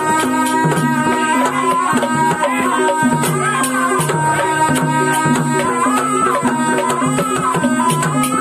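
Live ebeg gamelan accompaniment: a slompret (reed pipe) plays a wavering, bending melody over quick kendang drum strokes and a repeating pattern of low notes.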